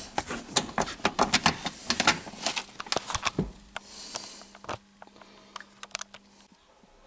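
Quick clicks and rattles of the Saab 9-3's console-mounted ignition lock and gear-lever mechanism being worked by hand, dense for the first three and a half seconds and then only a few. A faint steady hum runs through the middle. The key will not come out in reverse, which the mechanic takes as a sign that something in the lock mechanism was put back wrong.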